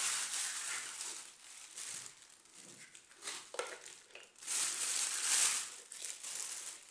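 Plastic packaging crinkling and rustling as vacuum cleaner attachments are handled and unwrapped, loudest near the start and again about two-thirds of the way through, with a few light knocks between.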